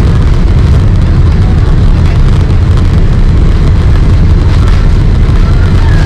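Loud, steady rumble of a Boeing 767-300(ER)'s General Electric CF6 turbofans at takeoff power, with rushing airflow, heard from inside the passenger cabin during takeoff.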